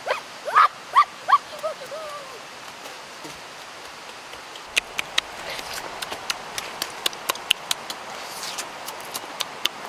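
Eating a roasted pork rib: a few short, high yelping vocal sounds about a second in, then a string of sharp wet clicks of chewing and lip-smacking through the second half.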